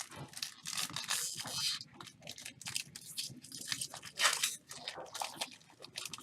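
Foil trading-card pack wrapper crinkling and tearing as it is ripped open and handled: dense, irregular crackling, loudest about four seconds in.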